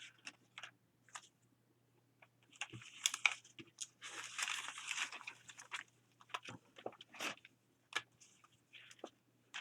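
Loose magazine paper cutouts being rummaged through by hand: scattered crinkles and rustles, with a longer stretch of steady rustling from about three to five and a half seconds in.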